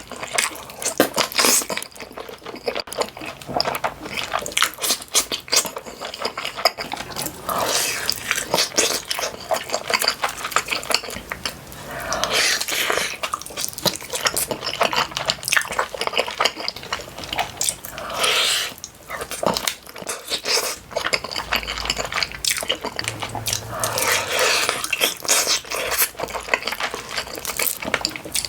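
Close-miked eating sounds: wet chewing, smacking and sticky clicks of the mouth on saucy, cheesy chicken, coming in dense clusters.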